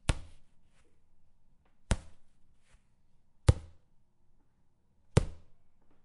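Soccer ball bouncing: four sharp bounces about a second and a half apart, each with a short ring, and fainter light taps between them.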